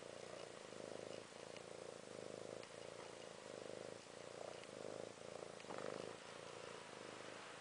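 Tabby kitten purring close up, a low, rough purr in short stretches with brief breaks between breaths.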